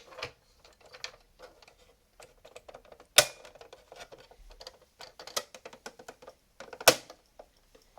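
Small clicks and taps of the plastic extension cover, with its module, being handled and fitted back onto the rear of an oscilloscope, with two sharp, loud clicks, one about three seconds in and one near the end.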